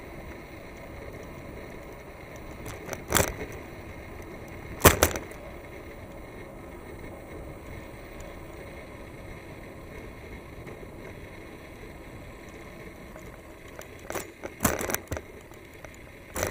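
Riding a bicycle along a paved path: steady wind and road noise at the microphone, broken by sharp knocks and rattles about three and five seconds in and a cluster of them near the end.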